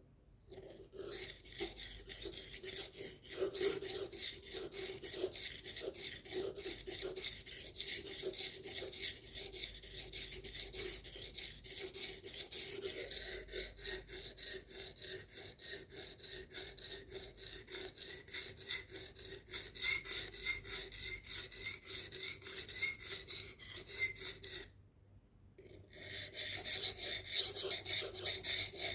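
Knife blade being sharpened, its steel edge scraping in rapid, steady strokes across an abrasive sharpener with a gritty hiss. The strokes stop for about a second near the end, then start again.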